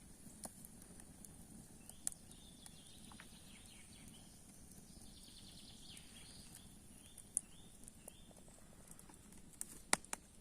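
Faint scattered clicks and knocks, the sharpest near the end, over a steady high hiss, with a run of short high chirps through the middle.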